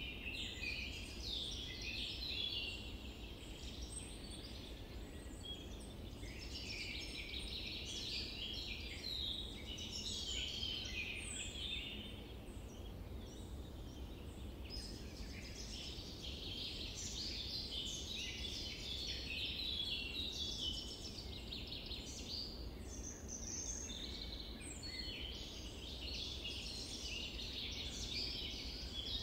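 Dense chorus of many small birds chirping and twittering, overlapping throughout, over a low steady background hum of outdoor noise.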